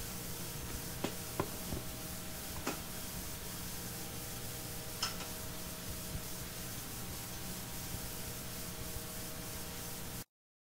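Steady surface hiss and mains hum from a 78 rpm record player on a Perpetuum Ebner Rex changer after the record has ended, with a few scattered clicks. The sound cuts off abruptly near the end.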